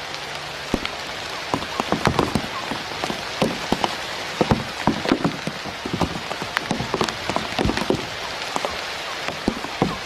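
Rain pattering steadily, a continuous hiss with many irregular heavier drops and taps.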